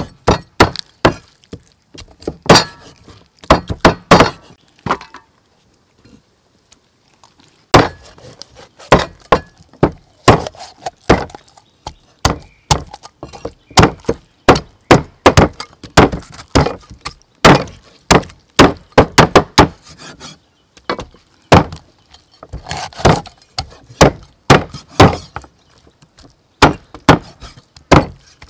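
Heavy cleaver chopping a raw chicken into pieces on a thick round wooden chopping board: repeated sharp chops at an uneven pace, pausing for a couple of seconds about five seconds in.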